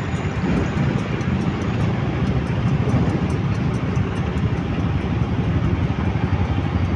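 Steady low rumble of idling motorcycle and scooter engines and city traffic at a busy intersection.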